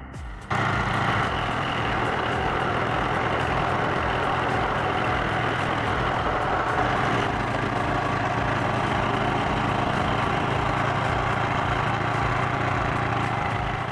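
A heavy machine's engine running steadily under load, cutting in abruptly about half a second in.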